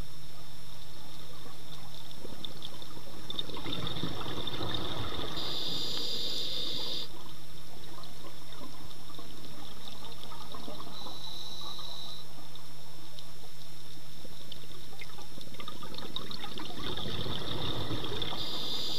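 Scuba diver breathing through a regulator, heard underwater: exhaled bubbles rush up about four seconds in and again near the end, with shorter high hisses of inhaled air in between, over a steady low hum.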